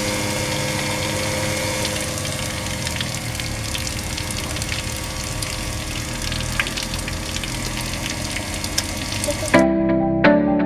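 Homemade water pump driven by a small 12 V DC motor, running steadily and spraying a jet of water that splashes back into the basin, with a steady motor hum under the splashing. About a second before the end this stops abruptly and echoing plucked-guitar music begins.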